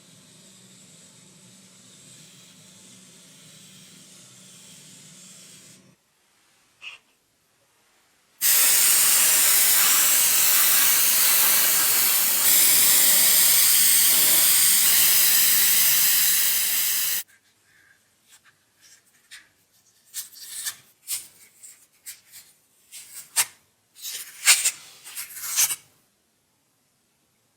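A loud, steady hiss lasting about nine seconds, starting and stopping abruptly. A faint steady hum comes before it, and a run of short, irregular scraping strokes follows.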